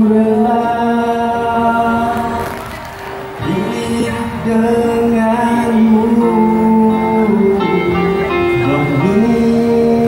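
A man singing into a microphone over backing music, holding long notes and gliding between them, with a short drop in level about three seconds in.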